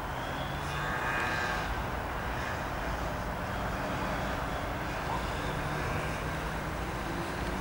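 ATR 72-600 twin turboprop engines and propellers running steadily, a continuous noisy drone with a faint whine above it that swells slightly about a second in.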